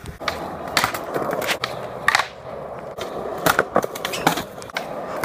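Skateboard rolling, with several sharp clacks of the board hitting the ground, spread over the few seconds.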